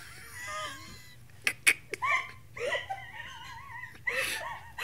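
Basset hound whining in a high, wavering voice, with a couple of drawn-out cries in the second half, unhappy in his new dog booties. Two sharp clicks come about a second and a half in.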